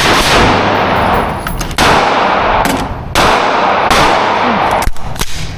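Rapid semi-automatic gunfire from a firearm with a forced reset trigger, run in fast continuous strings. The strings restart about two and three seconds in and stop about five seconds in, and a few separate shots follow.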